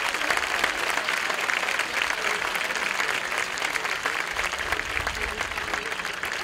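Large audience applauding, a dense steady clatter of many hands clapping. A low rumble comes in about four seconds in.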